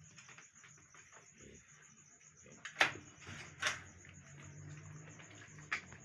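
Piglets making three short, sharp squeaks, about three, three and a half and almost six seconds in.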